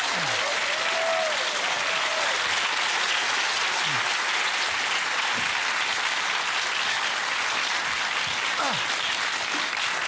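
Studio audience applauding steadily, greeting the performers as they are introduced.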